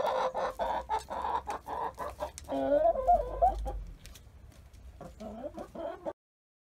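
Hens clucking while pecking rapidly at the metal tray of a treadle chicken feeder, with many sharp taps. A louder, wavering call comes about three seconds in, and the sound cuts off suddenly near the end.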